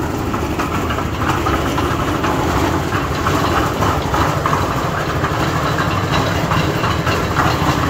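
Cement mixer's 7.5 hp Shinmax 168FS single-cylinder gasoline engine running steadily at a fast, even beat.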